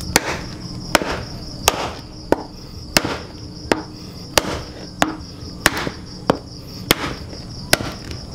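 Small hatchet chopping through a softshell turtle's bony carapace on a wooden block: a steady run of sharp chops, about one and a half a second, the shell hard to cut. Insects trill steadily behind.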